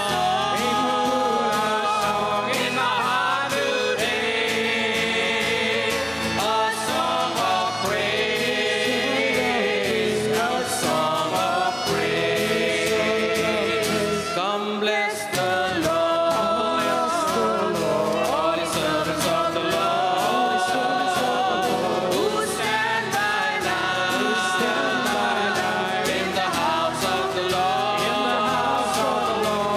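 Congregational worship song: several voices singing together, accompanied by guitar and keyboard with a steady beat.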